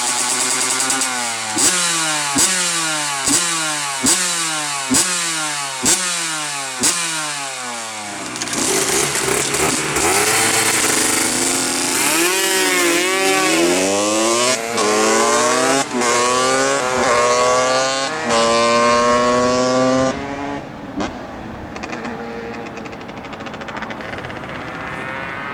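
125 cc two-stroke motorcycle engine revving: about seven quick throttle blips, each dropping away, then longer revs rising and falling. It runs quieter in the last few seconds.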